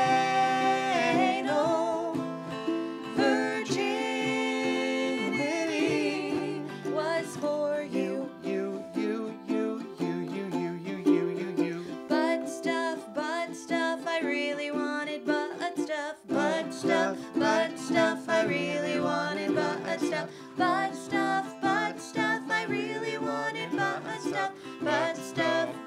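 Ukulele and acoustic guitar strumming a song together. A voice holds a sung note over the first few seconds, then the strummed chords carry on alone as an instrumental passage.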